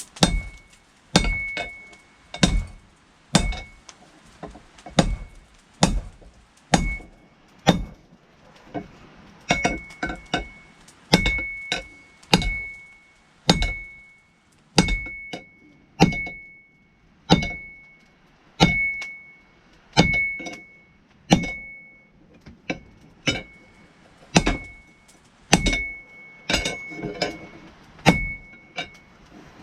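Hand hammer striking hot steel on an anvil at a steady pace of about one blow a second, each blow with a short metallic ring; the end of a steel wrench is being upset (driven back) to thicken it for a tomahawk edge.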